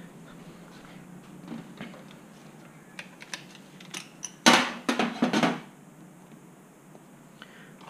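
Metal hand tools clattering in a stainless-steel workbench drawer as a torque wrench is taken out: a few light clicks, then a loud burst of knocks and rattles about halfway through.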